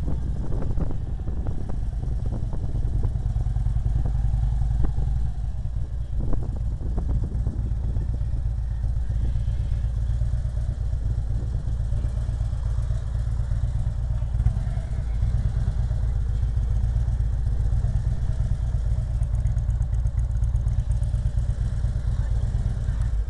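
Motorcycle engine running steadily at low speed, a deep continuous rumble.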